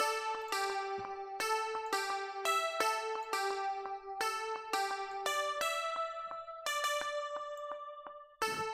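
A synth lead melody from the Serum software synthesizer, a pizzicato-style pluck preset layered with other synth sounds: short, bright plucked notes about two a second over held lower tones. The phrase breaks off briefly near the end and starts over.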